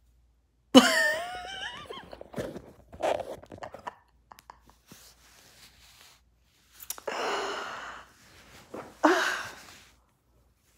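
A woman's pained vocal sounds from a fresh scald on her leg from hot tea: a sudden wavering moan about a second in, then breathy sighs and exhales.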